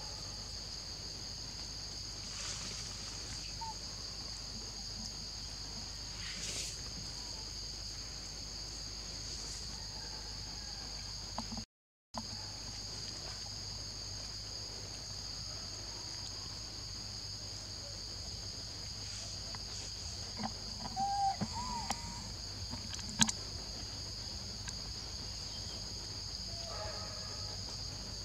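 Steady chorus of insects in the forest, a shrill high drone at two pitches. About three-quarters of the way through come a few short squeaky chirps and one sharp click, and the sound drops out for a moment near the middle.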